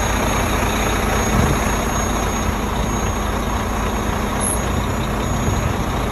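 Semi tractor's diesel engine idling steadily.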